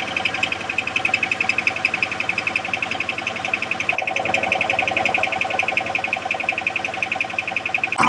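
1999 Toyota 4Runner's 3.4-litre V6 idling in gear with the parking brake set, with a fast, even ticking. Under this load the knock from its cracked flex plate almost goes away.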